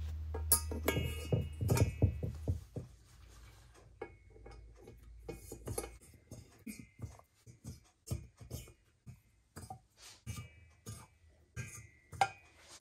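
Irregular light metallic clicks and clinks, some ringing briefly, as steel valves are handled and slid down into their guides in an aluminium motorcycle cylinder head.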